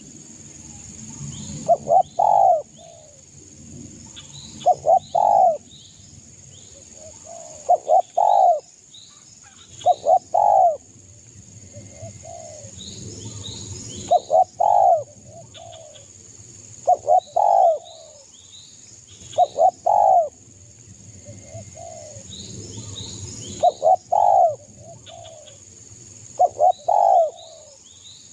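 Spotted dove (derkuku) cooing. It repeats its song phrase about every two to three seconds: two or three short coos run into a longer, drawn-out coo. Faint chirps of small birds sound behind it.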